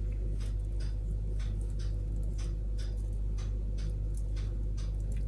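Even, regular ticking about twice a second over a steady low hum.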